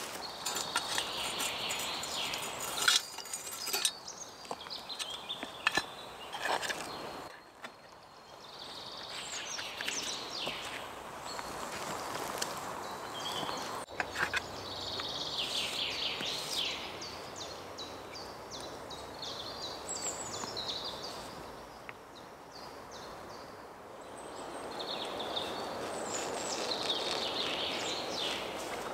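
Songbirds singing in woodland: short, quick trilled phrases repeat every few seconds over a steady background hiss. A few sharp clicks and knocks come in the first several seconds.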